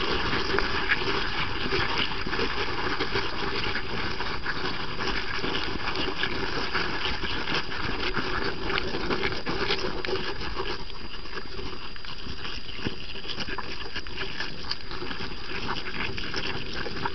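Underwater coral reef ambience: a steady hiss dense with fine crackling clicks, a little thinner after about ten seconds.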